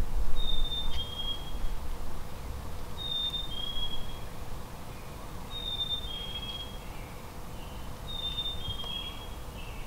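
A songbird whistling a clear two-note song, a high note and then a slightly lower one, repeated about every two and a half seconds. A low rumble is loudest in the first second or so.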